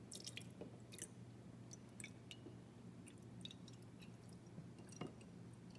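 Juice pouring from a plastic bottle into a glass jar with an egg in it: faint, with scattered small splashes and clicks over a low steady hum.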